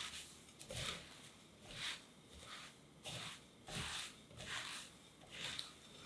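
Dry shredded kataifi pastry rustling and crackling under repeated strokes, about one a second, some with a light knock.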